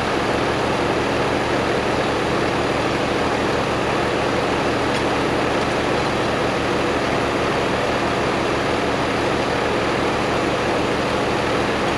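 The engine of the log-handling machine running steadily at an even speed, with a low regular throb underneath.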